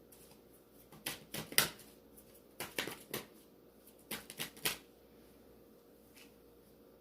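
Tarot cards being handled: three short bursts of card shuffling and flicking, crisp clicks and rustles about a second in, near three seconds and between four and five seconds.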